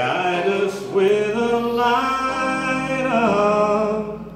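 A man singing into a microphone over a PA, holding a few long notes that step up and down in pitch. It is the song's last phrase, and the singing stops about four seconds in.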